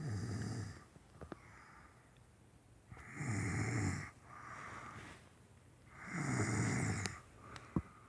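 A sleeping man snoring: three loud, rasping snores about three seconds apart, with softer breaths between them.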